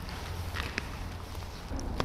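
Border collie eating a hard smoked duck treat off the floor: a few faint crunches and clicks over a low steady hum.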